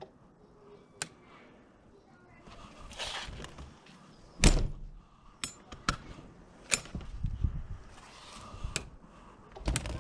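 Scattered clicks and knocks, with one loud thunk about four and a half seconds in and a short hiss of noise just before it.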